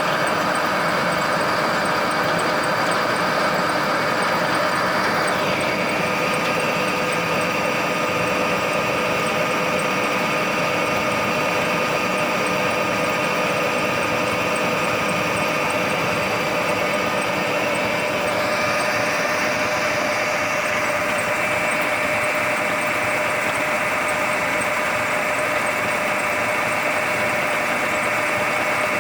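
Silage round baler and its drive engine running steadily while baling alfalfa silage, a constant mechanical hum with whining tones that step up in pitch about five seconds in and shift again about eighteen seconds in.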